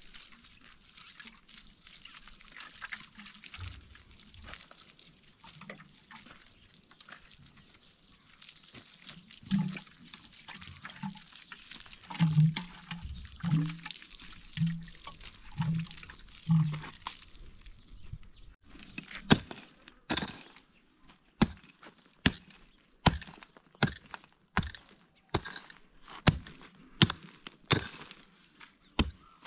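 Water pouring and splashing for about the first two-thirds, with a series of dull thumps about once a second midway. Then a steady run of sharp knocks, roughly one a second.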